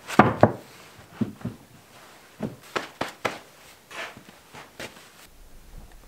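Freshly sawn white pine boards knocking and clacking together as they are handled onto a lumber stack. The loudest knocks come in the first half second, then a run of lighter knocks and footsteps follows before the sound drops away near the end.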